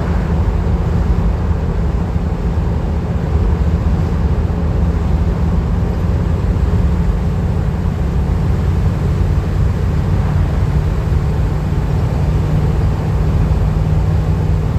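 Van cruising at highway speed: a steady, unbroken low rumble of engine and road noise with a constant hum, heard from inside the cab.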